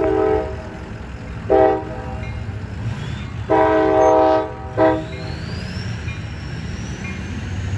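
Sounder commuter train's horn sounding four blasts for a street grade crossing, the third the longest, over a steady low rumble from the approaching train and traffic.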